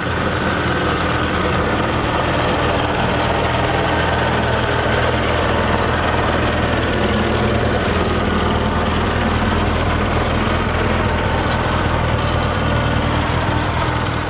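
Singer Monarch small tractor's engine running steadily at an even low speed.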